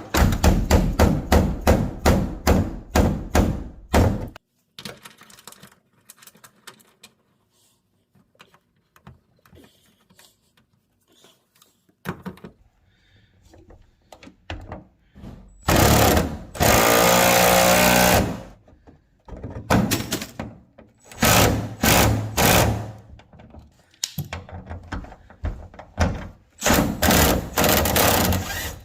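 Impact wrench hammering as it runs a bolt into a rivet nut, in several bursts of rapid strokes with pauses between them, the first lasting about four seconds.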